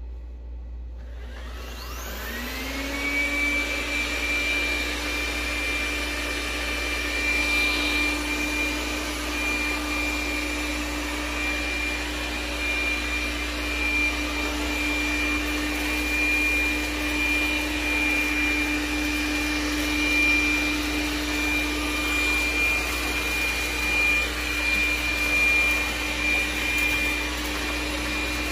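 DreameBot Z10 Pro robot vacuum's suction fan spinning up with a rising whine about two seconds in, then running steadily with a high whine as the robot cleans the floor.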